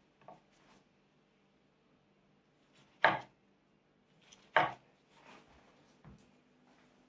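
Knife slicing a thin hosomaki sushi roll on a chopping board: two sharp knocks of the blade meeting the board about three and four and a half seconds in, with a few fainter taps around them.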